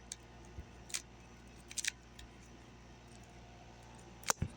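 Plastic 3x3 Rubik's cube being turned by hand: a few scattered sharp clicks as layers snap round, with a louder knock about four seconds in.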